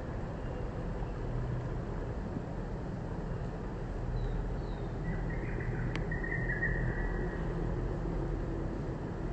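Steady low rumble of road traffic, with a couple of short high chirps about four seconds in.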